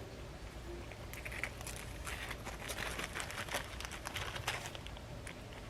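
Faint rustling and scattered light clicks of small nail-drill accessories (brush, sanding bands, drill bits) being handled and sorted in a small bag.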